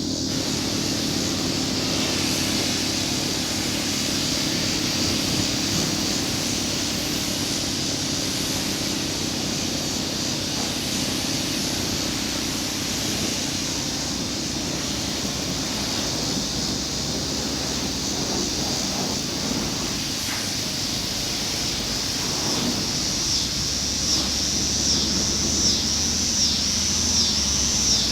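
Steady high-pitched outdoor hiss. Near the end it is joined by a high chirp repeating about every three-quarters of a second.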